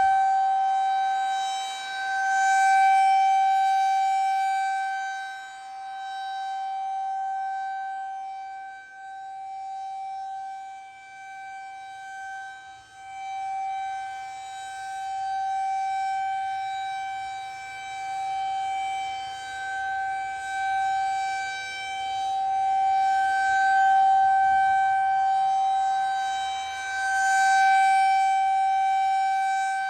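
Federal Signal 2001-SRN rotating tornado siren sounding a steady alert tone during its monthly test. It holds one unchanging pitch while the sound swells and fades several times as the rotating head sweeps toward and away.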